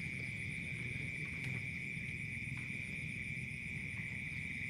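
Steady high-pitched drone of night insects, with a low rumble underneath.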